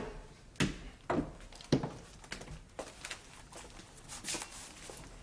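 Footsteps on a hard floor in a small room: four firm steps about half a second apart, then softer knocks and clicks, and a brief rustle of paper being handled near the end.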